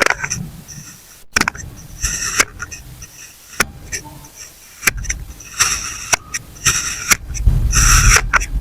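Kinetic sand being sliced with a blade: a series of crisp, crunchy cuts and scrapes, coming thicker and louder after about five seconds.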